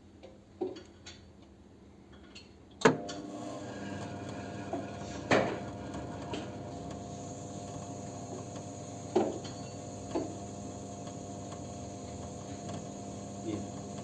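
A fuel-injector test stand switches on about three seconds in and runs with a steady hum, with a few sharp knocks from handling metal parts.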